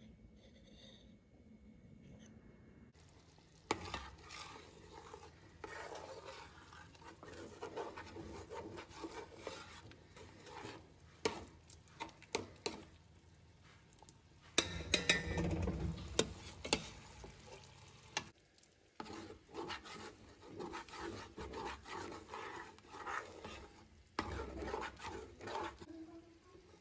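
A plastic spoon stirring thick chickpea stew in a steel cooking pot: irregular scraping and wet sloshing with sharp clicks of the spoon against the pot, starting about four seconds in and loudest about halfway through.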